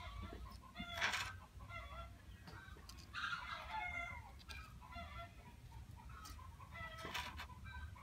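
Chickens clucking over and over in short calls, with louder bursts of calling about a second in, around three to four seconds and around seven seconds.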